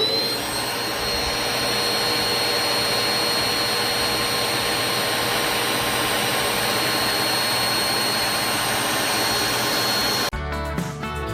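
A household electric motor, like a vacuum cleaner's, running at full speed: a steady high whine over a loud rushing noise, having just spun up. It cuts off suddenly about ten seconds in.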